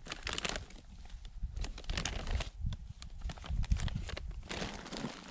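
Close crunching and rustling as hands work wax-treated trap-bedding dirt into a trap hole, with soft thumps under the dense, irregular crackle.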